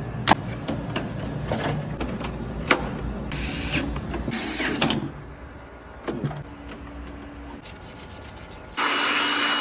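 Parts being handled and fitted by hand: scattered clicks and knocks, two short scraping rubs a few seconds in, and near the end about a second of loud hissing noise that cuts off suddenly.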